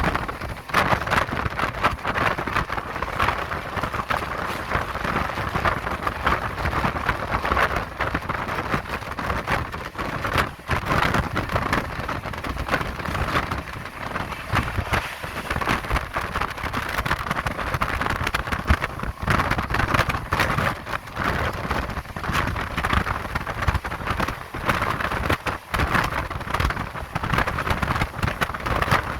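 Running noise of an express passenger train at speed, heard from on board: a steady rush of wind and wheels on rail with constant crackle and brief dips in level.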